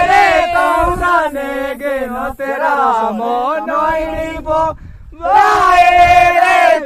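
A group of men's voices chanting a devotional chant in unison, loud and sustained, breaking off briefly about two-thirds of the way through and then starting again.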